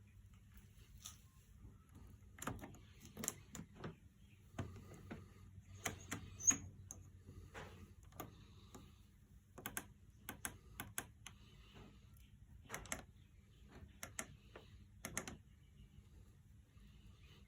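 Miele Novotronic W828 washing machine at the start of its programme: a faint steady low hum with scattered light clicks and knocks at irregular intervals.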